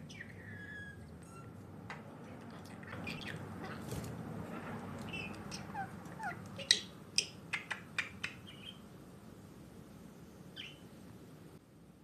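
Pet budgerigar chattering and chirping, trying out a garbled 'konnichiwa' ("kuonchichiwa"), with a quick run of sharp clicks a little past halfway.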